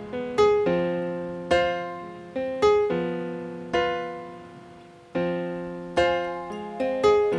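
Piano music: slow, unevenly spaced notes and chords, each struck sharply and left to ring and fade before the next.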